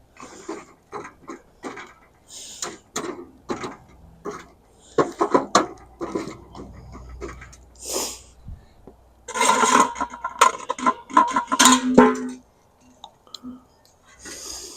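Cookware and utensils being handled and set down: repeated knocks, clinks and short scrapes. About nine seconds in comes a denser spell of metal clattering with a ringing tone.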